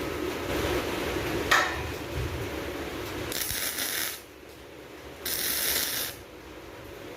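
Two short bursts of arc welding, each a crackling hiss lasting under a second, about two seconds apart: tack welds on the steel channel. A sharp click comes before them, over a steady background hum.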